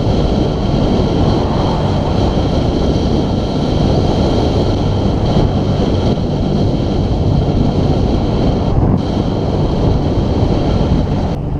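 Steady wind rumble on the microphone of a camera carried on a road bike riding at speed, mixed with road noise.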